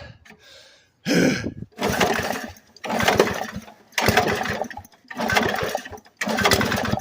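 A MOZ-ALL lawnmower's engine cranking over at full throttle in six short bursts of about a second each, starting about a second in, without settling into a run. Fuel is wetting the throttle butterfly of the updraft carburetor, which the owner calls a bad sign: the engine is flooding on gas mixed with a lot of two-stroke oil.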